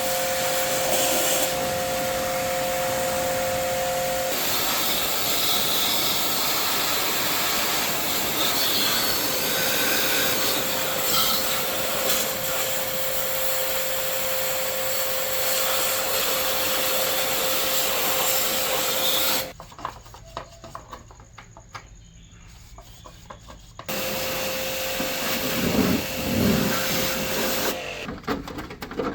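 A small electric motor runs steadily with a whine, with rubbing noise against a surface. It stops for about four seconds roughly two-thirds of the way through, then runs again for a few seconds before dying away near the end.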